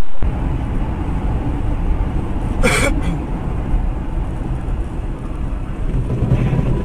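Vehicle road and engine rumble, with one brief harsh burst of noise a little under three seconds in, lasting about half a second.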